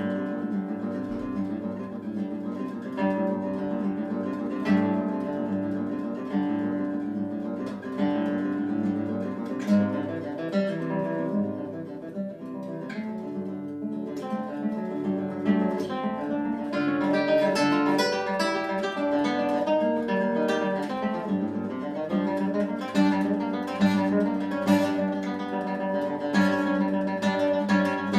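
Solo nylon-string classical guitar playing a fast, driving passage of quick notes over a steady low drone, broken every few seconds by sharp strummed accents. The playing eases briefly about twelve seconds in, then grows busier and louder with more high notes through the second half.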